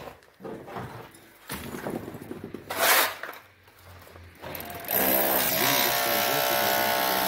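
Scattered knocks and clatter of building work, with one louder short noise about three seconds in. About five seconds in, a handheld electric power tool starts and runs steadily with a pitched motor sound.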